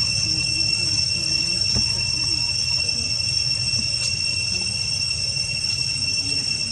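Steady high insect drone, like cicadas or crickets, holding one pitch throughout, over a low background rumble with faint distant voices.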